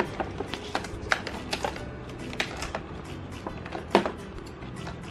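Stiff paper cards being handled and flexed between the fingers: irregular small clicks and crinkles, with the loudest snap about four seconds in.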